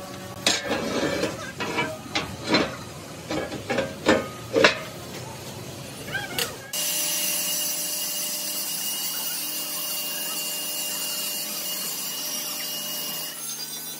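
Steel fabrication work: a run of irregular metal clanks and knocks that ring briefly, then, from about halfway through, a steady high hiss from a metal-working tool.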